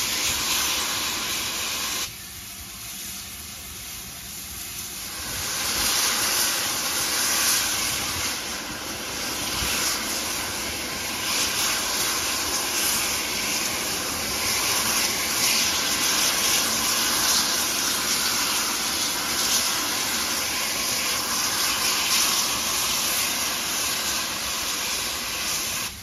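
Steam locomotive (GWR Manor Class 7828) standing and venting steam with a steady, loud hiss. The hiss drops back about two seconds in, then surges up again a few seconds later and holds.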